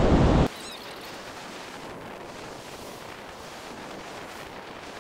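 Wind on the microphone and breaking surf, loud for the first half second, then cutting off abruptly to a faint, steady hiss of surf.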